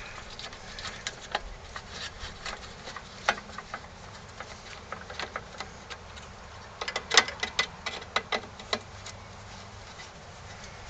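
Small sharp clicks and taps of a hand tool tightening the screws of a Briggs & Stratton mower's plastic carburetor housing. The clicks are scattered at first, then come in a quick run of about ten near the end.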